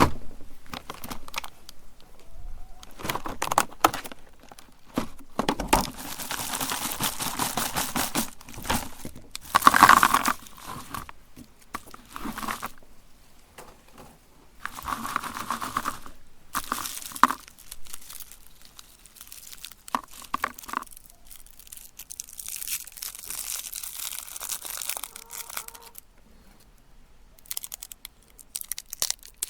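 Plastic candy wrappers being crinkled and torn open, in irregular bursts with short pauses.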